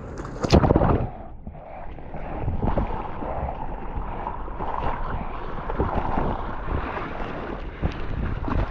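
Ocean surf and rushing water, with wind buffeting the microphone. There is a loud splash about half a second in, then steady churning water.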